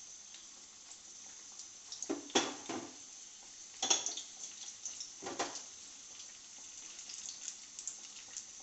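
Gram-flour-battered jackfruit bulbs deep-frying in hot oil, a steady crackling sizzle, with three louder surges of sizzling about two, four and five and a half seconds in as more battered pieces are dropped into the oil.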